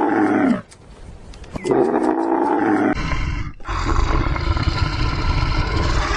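Animal calls: two long, voice-like calls that fall in pitch, then, from about three seconds in, a deep, rough growling roar that runs on.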